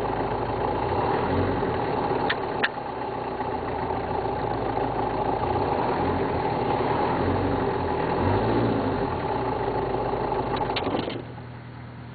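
Car engine idling, heard from inside the cabin, then switched off about eleven seconds in: after a couple of clicks the steady running sound drops away.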